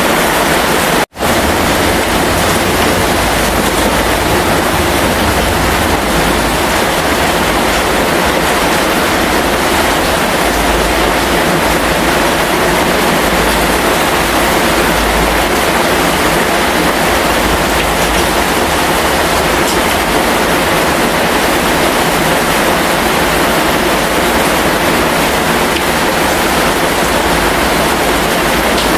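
Heavy rain falling in a steady, dense hiss, with a low rumble underneath that swells and fades. The sound drops out for an instant about a second in.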